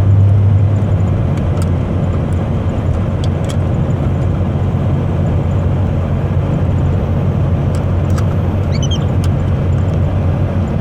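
Steady road and engine noise inside a moving car's cabin, a low hum with a few faint clicks.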